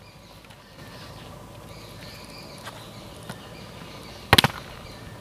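Faint steady outdoor background noise, broken about four seconds in by one sharp, loud double knock.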